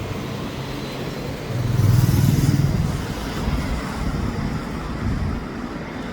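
Street traffic running steadily, with one vehicle, a motorbike or car, passing louder about two seconds in.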